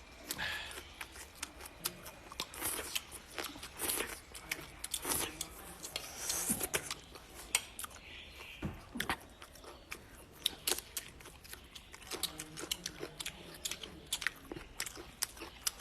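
A person chewing and biting food close to the microphone, with many irregular crunchy clicks and wet mouth sounds.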